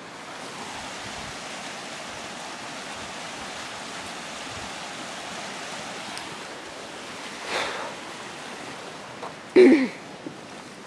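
Creek water rushing steadily. A short, loud cry near the end.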